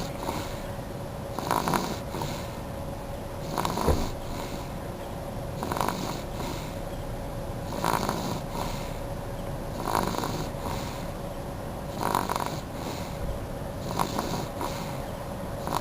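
Baby snoring in deep sleep, a short snore about every two seconds in a steady rhythm, seven in a row.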